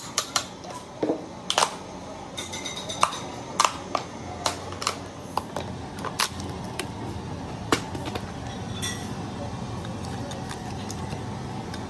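Hammer striking a chisel into the seam of a lead-acid car battery's plastic lid, making sharp, irregular knocks about once a second as the lid is cut free. Near the end the knocks stop and a metal blade scrapes inside the opened cells.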